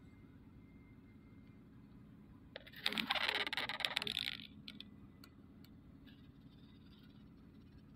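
Car engine idling with a quiet, steady low hum; about three seconds in, a loud jingling clatter of small hard objects lasts about a second and a half, then dies away.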